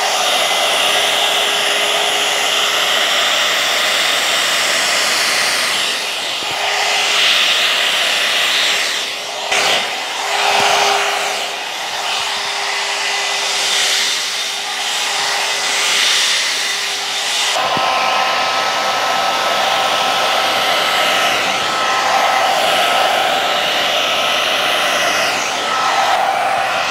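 Alan Truman hot-air blow brush running continuously, blowing air through wet hair as it is brushed. Its motor tone changes suddenly about two-thirds of the way through, from a lower hum to a higher pitch.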